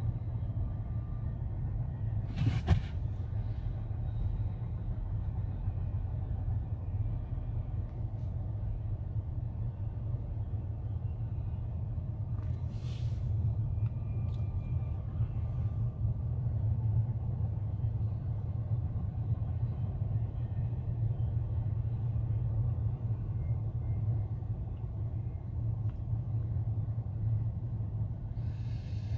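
Steady low rumble of vehicles, with a brief sharp click about two and a half seconds in and a short hiss around the middle.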